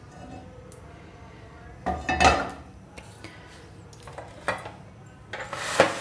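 Kitchen dishes and utensils clattering as they are handled and set down on the counter: a loud clatter about two seconds in, a single knock a little past four seconds, and a longer rattling clatter with a sharp hit near the end.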